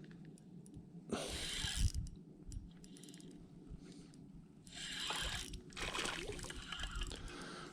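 Water splashing and sloshing in a few short bursts as a small smallmouth bass is brought in at the shoreline on a fishing line.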